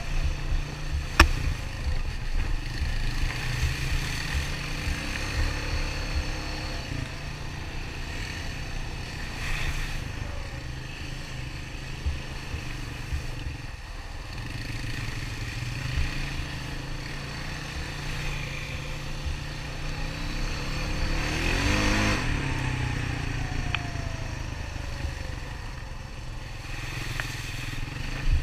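Honda four-stroke ATV engine running along a trail, its pitch rising and falling with the throttle, with clatter from the rough ground and a sharp knock about a second in.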